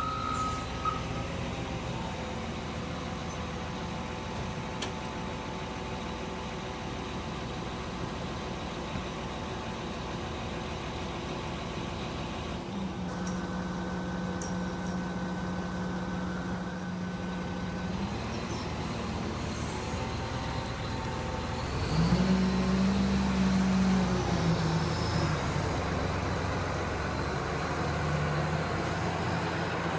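Engines of trucks and heavy construction machinery running steadily, with a reversing alarm beeping briefly at the start. One engine revs up louder about 22 seconds in.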